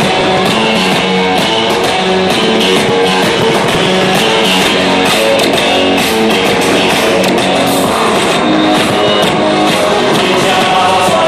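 Loud rock music with electric guitar playing steadily.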